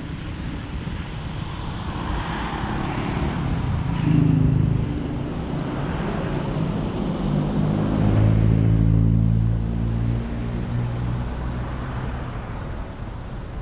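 Road traffic heard from a moving car: steady engine hum and tyre noise on a wet road. A nearby vehicle's engine swells loudest about four seconds in and again from about eight to ten seconds, then the sound eases as traffic slows toward the lights.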